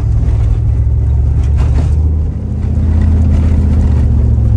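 Stock Jeep driving on a dirt road, heard from inside the cabin: a steady low engine and tyre drone with road noise over it, briefly dipping about two seconds in.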